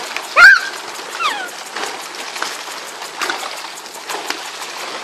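Small fish splashing and flapping on the surface of shallow water as a plastic sheet is drawn in around them, with many small slaps. About half a second in, a loud, short high-pitched cry glides up and bends down, and a shorter falling cry follows about a second later.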